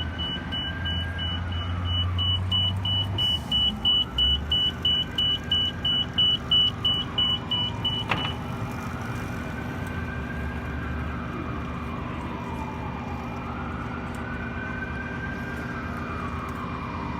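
A high electronic beep repeating about three times a second, stopping about eight seconds in. Under it a siren wails slowly up and down throughout.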